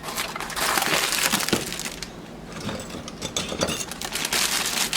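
Crinkling and clicking of dry food packaging being handled, with dense crackly rustling and many small clicks throughout.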